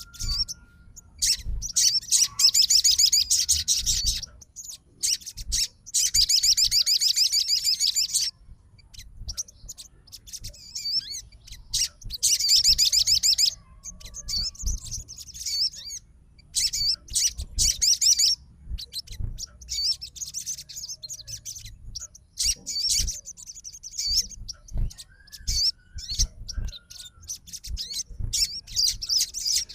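A sogon cage bird singing in bursts of fast, high, trilling and warbling phrases, several lasting two or more seconds, separated by short pauses. This is the aggressive, challenging song of a 'fighter' bird.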